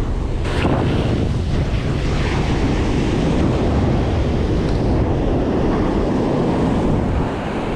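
Ocean surf breaking and washing up the sand, with wind noise on the microphone.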